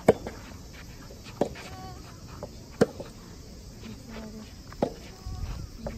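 Soft tennis rackets striking the rubber ball in a rally: four sharp hits about one and a half to two seconds apart. A steady high hiss of insects runs behind.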